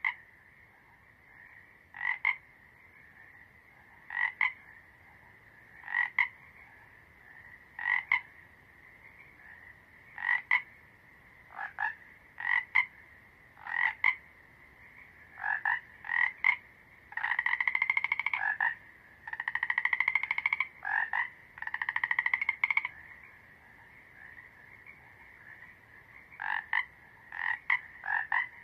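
Frogs croaking at a pond over a steady high background chorus: short croaks about every two seconds, then three longer trilled calls about halfway through, and quicker paired croaks near the end.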